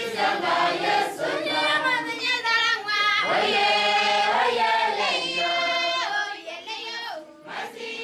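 A group of voices singing together like a choir, holding long notes; the singing grows quieter about six seconds in.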